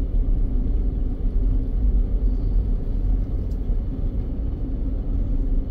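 Steady low rumble of a car driving on a paved road, tyre and engine noise heard from inside the cabin.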